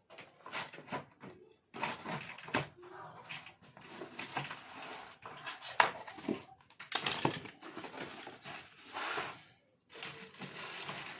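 Packaging being handled and opened as a boxed amplifier is unpacked: irregular crinkling, rustling and scraping with sharp crackles.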